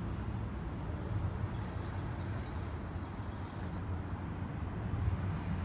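Distant rumble of an Airbus A321 jet airliner's engines climbing out after takeoff, a steady low roar.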